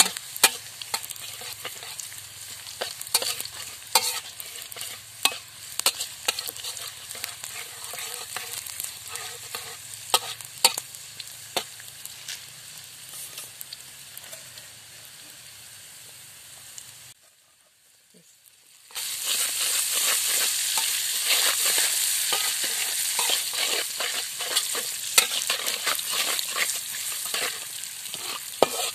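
Food frying in hot oil in an aluminium wok, with a spatula scraping and clicking against the pan as it is stirred. The sound stops for about two seconds a little past halfway, then comes back as a louder, thicker sizzle.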